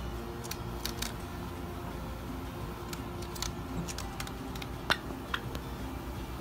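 Java sparrows moving about on a paper-lined shelf top: a scatter of light ticks and taps from their feet and beaks on the paper, with the sharpest click a little before five seconds in, over a steady low hum.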